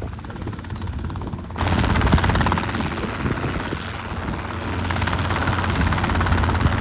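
Helicopter hovering: its rotor and engine make a steady low drone with a fast, even beat. About a second and a half in, a louder hiss suddenly joins it and holds to the end.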